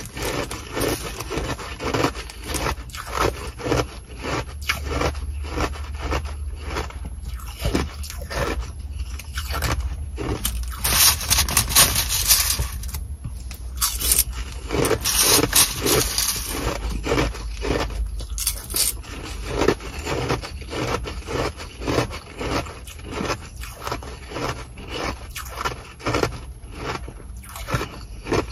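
Close-up crunching and chewing of Sonic-style nugget ice, rapid repeated crunches, with a plastic spoon scraping and scooping the ice inside a plastic bag. A few louder, crisper crunches come around the middle.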